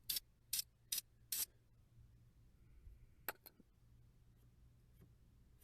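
Four quick, short bursts of hiss from a Krylon aerosol spray-paint can, evenly spaced in the first second and a half, as paint is dabbed onto the car in light touch-up passes. A couple of faint clicks follow about three seconds in.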